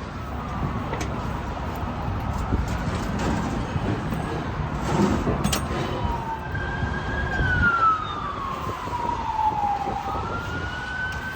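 A siren wailing, its pitch slowly rising and falling several times, over a steady low rumble, with a few sharp clicks about halfway through.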